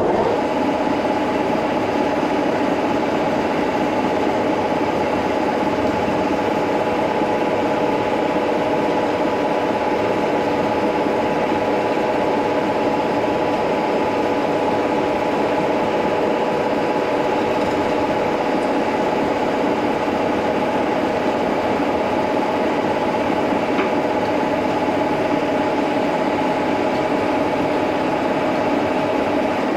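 Brown & Sharpe No. 2 milling machine's spindle starting up and running steadily at 1200 RPM, its gearing giving a steady whine of several tones, while a carbide drill bores through a hardened hand file.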